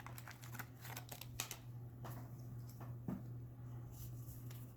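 Soft clicks and light taps of trading cards being handled and slid against one another, thickest in the first second and a half, over a steady low hum.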